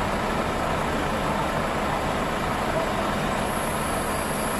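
Heavy diesel engine running steadily at idle. A high, steady whine comes in a little over three seconds in.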